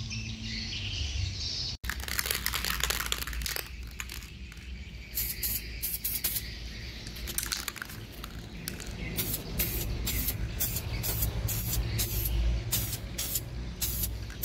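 Aerosol spray-paint can hissing in repeated short bursts, laying a thin first coat of smoke-black paint onto car emblems.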